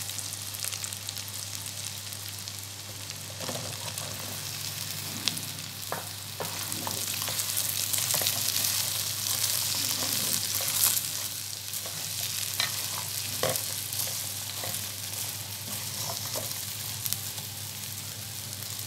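Hot oil sizzling in a metal karahi as cut okra goes in with frying potato cubes, a spatula stirring and tapping now and then against the pan. The sizzle grows louder about halfway through.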